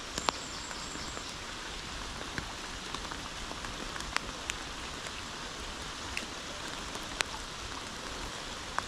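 Steady hiss of heavy rain, with scattered sharp ticks of single drops striking close by.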